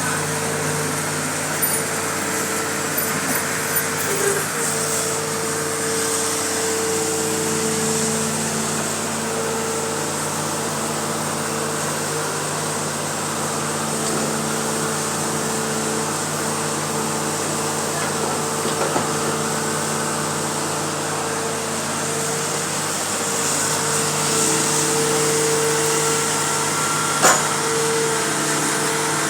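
Hitachi hydraulic excavator running steadily, its diesel engine and hydraulics giving a whine of several held tones that shift slightly as the work goes on, with a sharp knock near the end.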